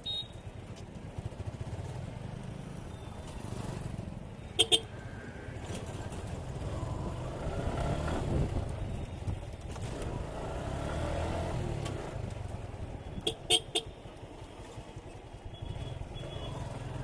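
Suzuki Gixxer 155's single-cylinder engine running at riding speed, a steady low rumble that swells for a few seconds mid-way, on congested road traffic. Short horn beeps cut through: one about five seconds in and a quick pair near the end.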